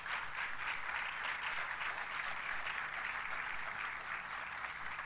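Lecture-hall audience applauding steadily after a talk.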